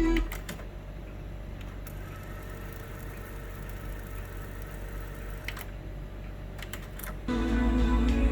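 Teac V-7000 cassette deck's tape transport: the music stops with a click, the motor runs with a steady low whir and a few sharp mechanical clicks, then a cluster of clicks and the music playback starts again about seven seconds in.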